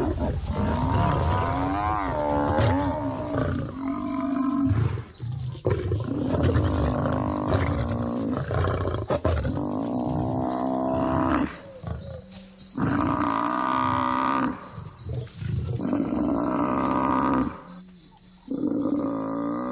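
Lions growling and snarling as they pull down a wounded Cape buffalo: a run of long, wavering calls broken by short pauses.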